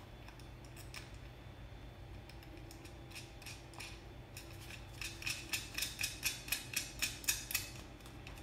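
Small metallic clicks of a steel nut and washer being threaded by hand onto a 3D printer bed's levelling screw. There are a few scattered clicks, then a quick run of about four clicks a second for a couple of seconds from about five seconds in.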